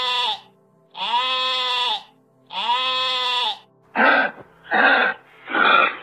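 Sheep bleating: three long calls of about a second each, rising then falling in pitch. From about four seconds in come three shorter, rougher calls of a different kind, less than a second apart.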